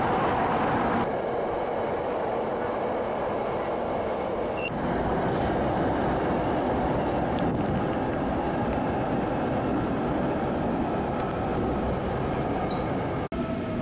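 Beijing subway train running, heard from inside the carriage as a steady rumble and rolling noise, with a brief break near the end.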